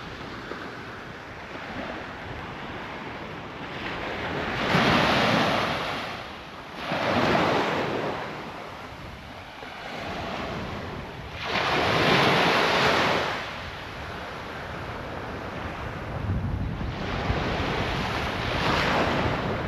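Sea waves breaking and washing up the beach, surging four times a few seconds apart, with wind on the microphone.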